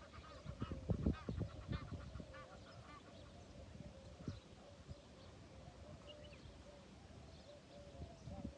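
Waterfowl honking on the lake: a quick run of calls at first, then a steady series of lower honks about twice a second, over a low rumble that is loudest about a second in.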